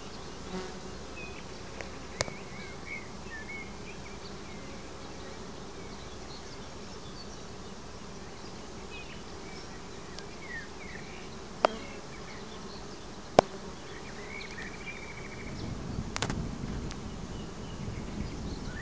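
Honeybees buzzing in a steady hum at the hive entrances of a busy apiary, foragers working a black locust (acacia) nectar flow. A few faint high chirps and two sharp clicks come through near the middle, and the sound grows louder and rougher near the end.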